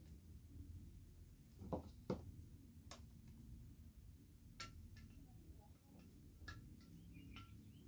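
Quiet kitchen handling: a few scattered light clicks and taps of a utensil against a plastic container, over a low steady room hum.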